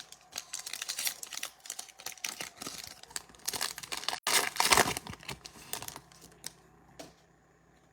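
A trading card pack's wrapper crinkling and tearing as it is opened by hand: a run of irregular crackles, loudest a little past halfway, thinning to a few light clicks near the end.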